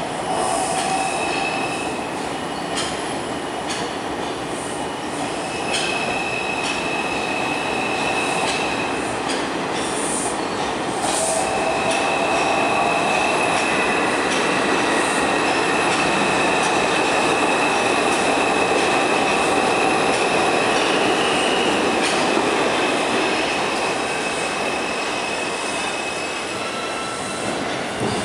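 New York City subway train running along the station platform: a steady rumble of steel wheels on the rails, with a high wheel squeal that comes and goes. The squeal is longest from about twelve to twenty-four seconds in, and the noise eases near the end as the last cars clear the platform.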